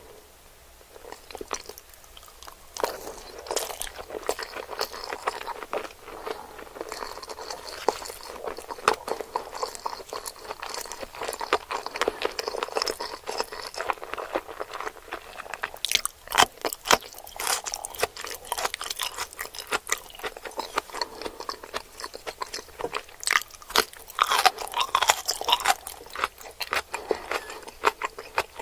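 Close-miked eating sounds: someone biting into and chewing sushi and sashimi, with a dense run of crisp, wet crunching clicks. There are sharper, louder bites around the middle and again near the end.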